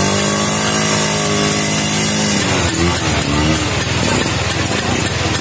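Two-stroke Vespa scooter engine held at high revs under load, then the note drops about two and a half seconds in and wavers up and down before turning rough.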